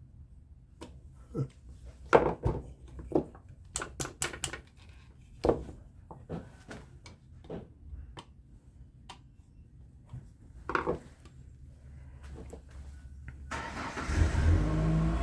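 Scattered sharp clicks and knocks of metal tools working at a small fan motor's housing, prying it apart. Near the end a steady low hum with hiss sets in and gets louder.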